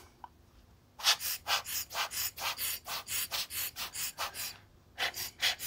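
Rubber rocket air blower squeezed again and again, puffing air at a camera lens to blow dust out, about four puffs a second. The puffing starts about a second in, stops briefly near the end, then picks up again.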